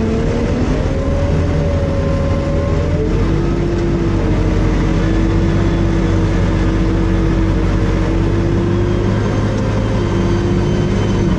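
John Deere road grader's diesel engine running steadily under load, heard from inside its cab, its pitch dropping about three seconds in and then holding.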